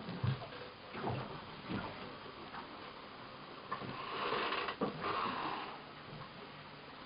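Handheld camera handling noise in a small room: a few soft knocks, and a breathy rustling hiss lasting about a second and a half, starting about four seconds in.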